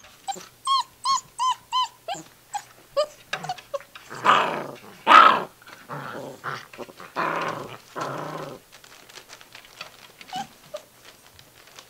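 Gordon Setter puppies, six weeks old, calling: a quick run of four high whines near the start, a few short yips, then rough growling from the middle on, fading to faint small sounds near the end.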